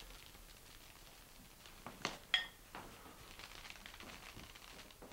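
Faint scratching and light tapping, with two small sharp clinks of a hard dish about two seconds in, the second ringing briefly.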